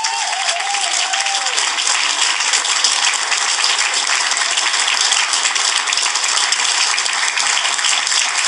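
Audience applauding loudly and steadily, with a few short cheers in the first second or so.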